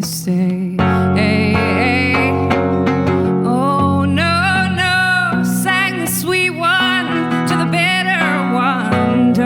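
Live folk song: strummed acoustic guitar under a wordless vocal melody with wavering, sustained notes.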